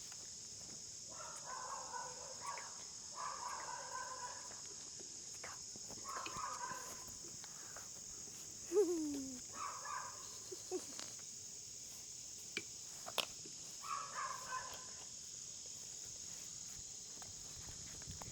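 A steady, high insect chorus of crickets chirring, with an animal call about a second long repeating five times, every two to four seconds, and a short falling sound about nine seconds in.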